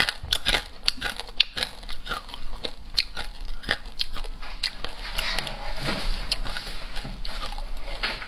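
Chewing of crispy fried fish bones close to a clip-on microphone: a run of sharp, dry crunches, several a second, thickening into a denser grinding crunch about two-thirds of the way through.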